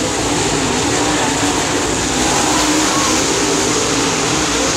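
Dirt late model race cars' V8 engines running hard around the track, several engine notes rising and falling over one another in a steady loud din.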